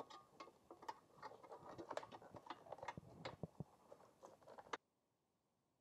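Faint, irregular small clicks and rubbing of gloved hands handling a headlight bulb socket and its plastic wiring connector. The sounds stop abruptly about a second before the end.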